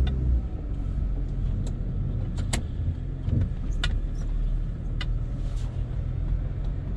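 BMW E36 moving slowly, heard from inside the cabin: a steady low engine and road rumble with a few sharp clicks.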